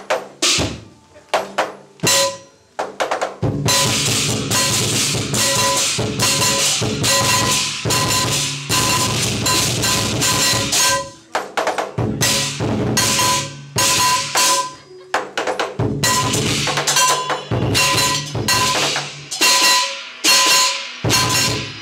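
Loud percussive drumming. A few separate strikes come first, then a dense, driving run of hits from about three and a half seconds in, broken by short gaps.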